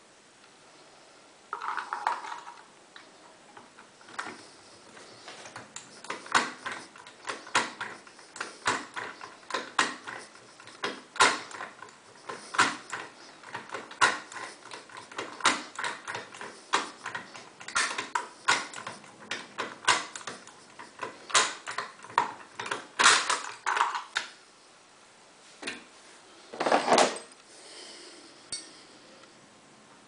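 Metal picking tools clicking and clinking inside an Auno 6+6 lever lock as they are worked in the keyhole: irregular sharp clicks, about one or two a second, with a brief scrape near the start and a louder scrape near the end.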